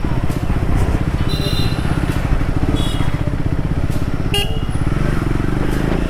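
Triumph 400X's single-cylinder engine running as the motorcycle is ridden, a steady, evenly pulsing exhaust note.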